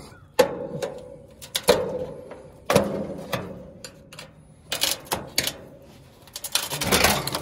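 Metal clanks and knocks from parts of a Rheem heat pump condenser being worked on while its fan motor is taken out. There are several sharp single clanks, each with a brief metallic ring, and then a quick rattling clatter near the end.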